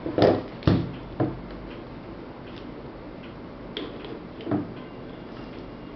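Light clicks and knocks of a charging cable's connector and a phone being handled and plugged in: three in quick succession in the first second and a half, then two more about four seconds in.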